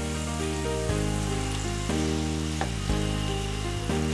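Fenugreek leaves sizzling in hot oil in a wok as they are stirred with a spatula, under background music of held notes that change about every second.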